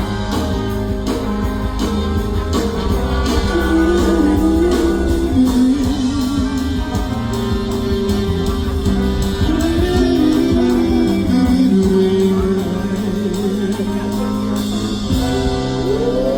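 Music with guitar over a steady low bass and beat.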